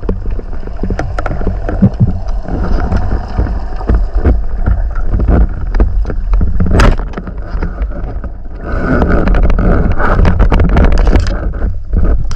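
Underwater sound through a camera housing on a wooden speargun: a steady low rumble of water with scattered clicks and knocks. A single sharp crack about seven seconds in, the speargun firing at a fish, followed from about nine to eleven seconds by a louder rushing, bubbling noise as the speared fish fights on the line.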